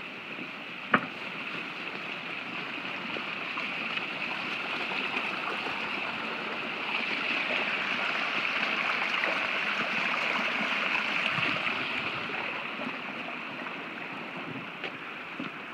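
Small brook rushing and trickling over rocks, growing louder through the middle and easing off near the end. A single sharp knock about a second in.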